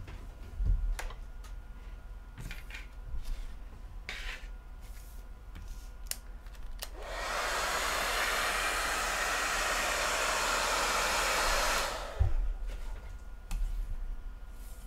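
Heat gun blowing hot air onto the front of a phone to separate the digitizer from the frame. It runs steadily for about five seconds, starting about seven seconds in and then switching off abruptly.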